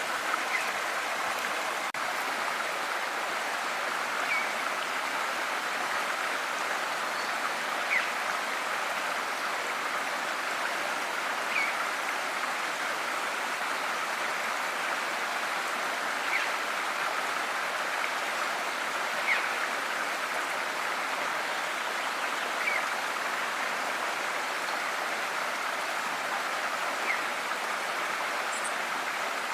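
Steady rushing flow of a river, with a short high bird chirp every three to four seconds.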